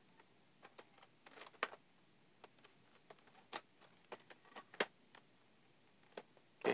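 Faint, irregular clicks and rustles of a plastic hair clipper and its packaging being handled, with one louder click at the very end.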